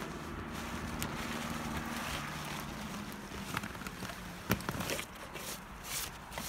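A low, steady engine hum whose pitch shifts slightly about two seconds in. In the second half it is joined by a run of sharp clicks and crunches, the loudest about four and a half seconds in.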